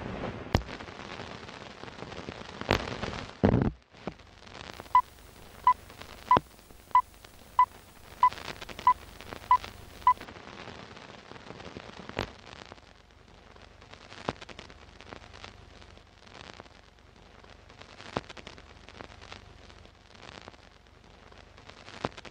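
Old-film sound effect: a steady crackle and hiss with scattered clicks and pops, and a louder crackling burst about three seconds in. Between about five and ten seconds in, a run of nine short, even beeps sounds, about two-thirds of a second apart.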